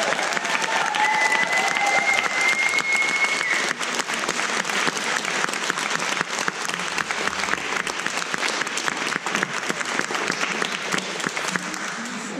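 Audience applauding steadily at the end of a speech, with one held high whoop over the clapping in the first few seconds; the applause eases off a little toward the end.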